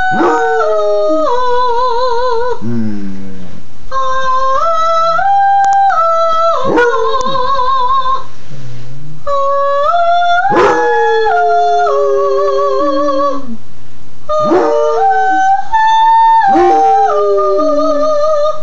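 A basset hound howling along with a woman singing, in four long phrases of held notes that step up in pitch with a wavering vibrato, broken by short pauses.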